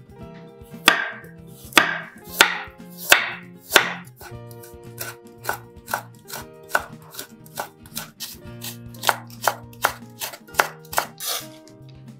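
Chef's knife chopping a raw carrot on a bamboo cutting board, cutting it into matchsticks. About five heavy cuts come in the first four seconds, then a run of lighter, quicker chops at about two a second.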